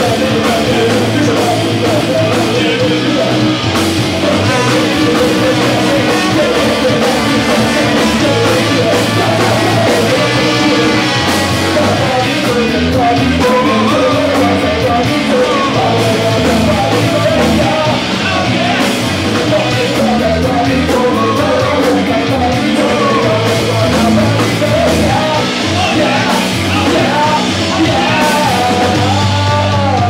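Ska-punk band playing loud: electric guitar, bass guitar and drum kit under trumpet and saxophone lines.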